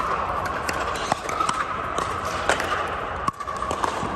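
Scattered sharp pops of pickleball paddles striking plastic balls and balls bouncing on hard courts, irregular and about a dozen of them, over a steady background hum.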